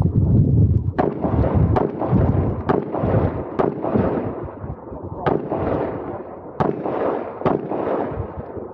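Handgun shots fired one at a time during a timed IPSC course of fire, about seven sharp cracks spaced roughly a second apart, some with longer pauses between, over a continuous low rumble.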